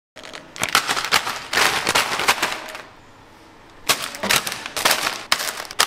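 Plastic wrapping crinkling as a packet of instant noodles and a plastic bag of green chilies are handled, in two spells of crackling with a pause of about a second near the middle.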